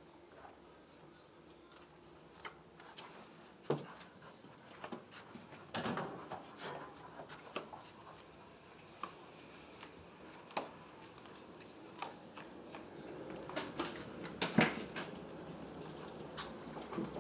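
Scattered clicks, knocks and rustling as a young pit bull puppy moves about a room and across the floor. A few louder knocks come about four seconds in and again about three quarters of the way through.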